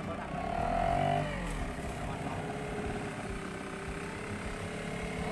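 A small engine running, louder and higher-pitched for about the first second, then its pitch drops and it runs on steadily.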